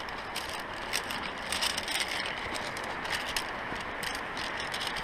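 Irregular light clicks and rattles of hard gear being handled, over a steady background hiss.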